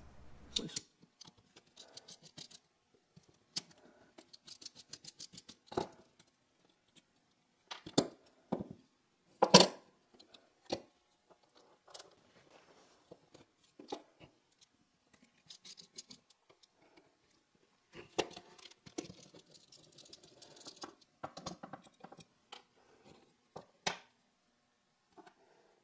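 Scattered metallic clicks, clinks and knocks as the steel parts of a DoAll bandsaw's old blade shear are handled and taken apart with hand tools on a wooden workbench, with a few louder knocks partway through.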